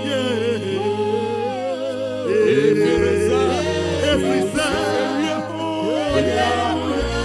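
Slow gospel worship singing, with voices gliding over sustained low keyboard notes that change every few seconds.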